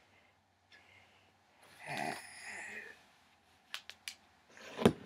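A person's breathy, snorting laugh about two seconds in, then three short sharp clicks from handling a small digital camera, and a louder burst of laughter near the end.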